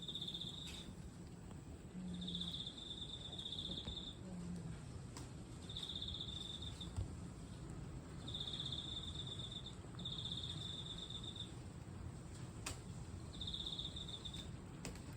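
A cricket singing: six high-pitched trilled chirps, each lasting about a second, with pauses of a second or two between them.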